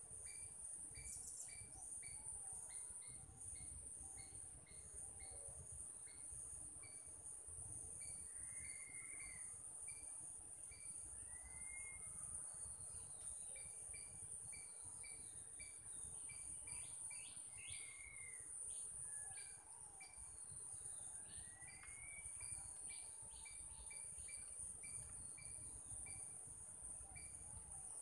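Faint outdoor ambience: a steady high-pitched insect drone, with a regular series of short chirps about one or two a second. Several birds give separate rising-and-falling calls, with a quick run of notes a little past the middle.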